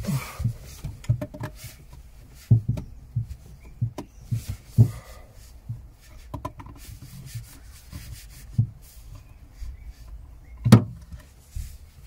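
Handling noise from hands working on amplifier wiring: a jacket rustling and scattered light knocks and taps, with one louder knock near the end.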